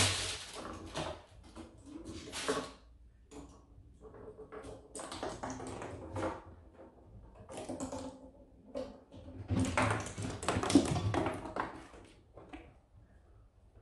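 A pine cone batted by kittens, tapping and rattling as it rolls over wooden deck boards in irregular bursts, busiest about ten seconds in.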